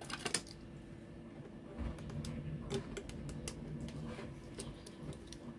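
Hands working electrical tape onto a 3D-printed plastic tank body: scattered small clicks and rubbing, with a cluster of clicks right at the start, over a faint steady hum.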